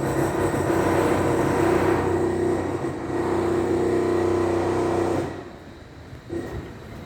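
Train passing close by: a loud, steady rumble with a droning hum that drops away about five seconds in.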